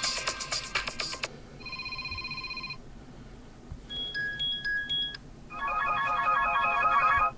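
Mobile phone ringtones played one after another, each a second or two long with short gaps between: a busy electronic tune ending about a second in, a short pulsing beep, a sparse two-note chime, then a dense melodic tone that cuts off suddenly near the end.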